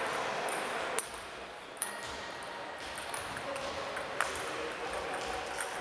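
Table tennis rally: the ball clicking sharply off the bats and the table, about six ticks at uneven intervals with the loudest about a second in, over the steady background noise of a sports hall.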